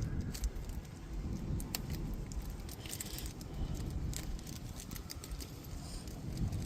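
Small metal clicks and light rattles of brake caliper hardware, retaining pins and clips, being handled and fitted at a front brake, over a steady low rumble.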